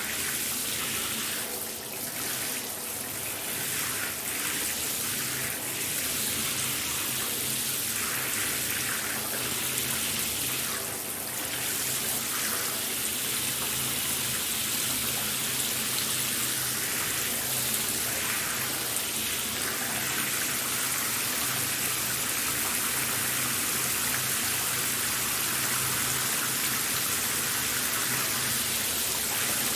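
Shower running: a steady hiss of spraying and splashing water, uneven for the first ten seconds or so, then even.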